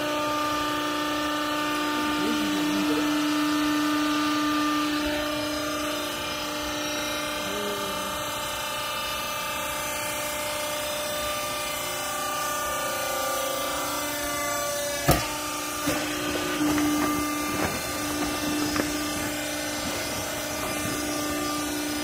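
Hydraulic power unit of a vertical textile baler running with a steady pitched hum. A single sharp clank about fifteen seconds in is followed by a few lighter knocks.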